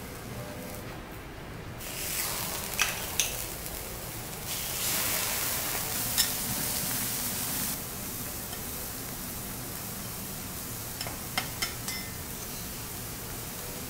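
Food sizzling on a hot steel teppanyaki griddle, louder for a few seconds in the middle. A metal utensil gives a few sharp clicks on the steel, twice about three seconds in, once about six seconds in, and twice near the end.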